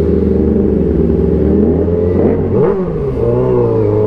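Yamaha R6 inline-four sport-bike engine at low road speed, heard from on board, its pitch wavering with small throttle changes. The revs dip briefly and then rise again about two and a half seconds in.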